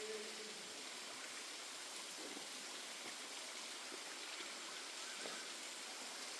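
Steady rushing of falling water from a waterfall, with a few faint ticks.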